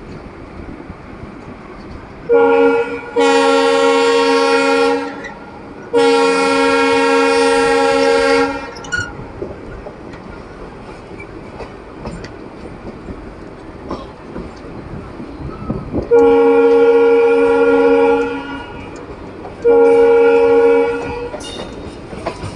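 WAP-4 electric locomotive's EMD-style air horn sounding a multi-tone chord in five blasts: a short toot about two seconds in, two long blasts, then after a pause two more. Underneath is the steady rumble and clickety-clack of the coach running on the rails.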